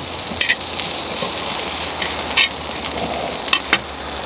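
Cold cooked rice sizzling as it is fried in a hot pan with kimchi and egg, with a few sharp clicks of a utensil against the pan.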